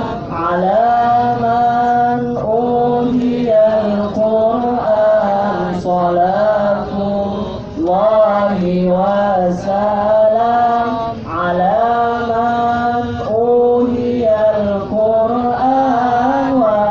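A man chanting in Arabic, singing a slow, ornamented devotional melody of long held notes that bend and glide, with brief pauses for breath, his voice amplified through a handheld microphone.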